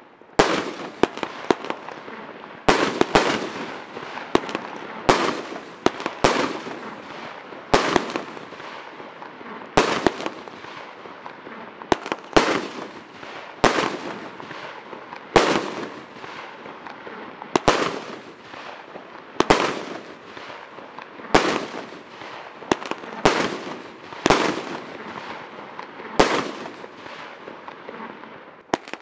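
Weco 'Hurricane' fireworks cake firing shot after shot: a sharp bang every second or two, some in quick pairs, over a steady hiss and crackle between the shots.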